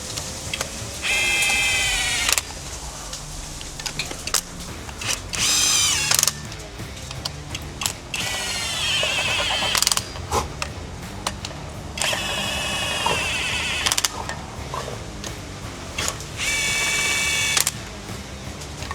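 Hand ratchet wrench clicking in several short bursts as bolts are run down on the engine.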